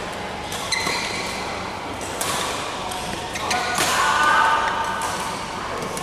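Badminton rally: sharp racket hits on the shuttlecock a second or so apart, among thuds of players' feet on the court.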